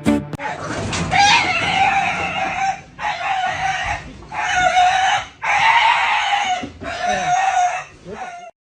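Loud, harsh animal calls repeated five times in a row, each lasting one to two and a half seconds with short breaks between, cutting off suddenly near the end.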